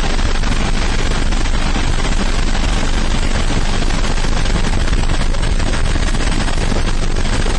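Helicopter noise: a loud, steady rush with a fast, fine flutter of rotor chop.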